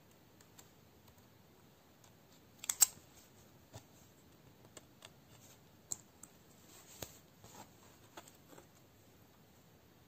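Quiet, scattered small clicks and taps from hand-stitching a cross-stitch, a needle and thread being worked through the canvas, with a louder pair of clicks about three seconds in.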